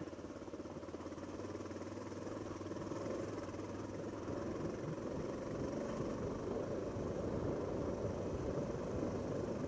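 Honda XR650L's air-cooled single-cylinder four-stroke engine running steadily at low speed, growing a little louder toward the end.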